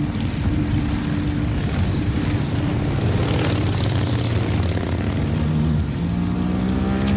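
Several motorcycle engines running at low speed, a steady deep drone of stacked engine tones, with the engine pitch stepping up in the last second or so as the bikes pull in.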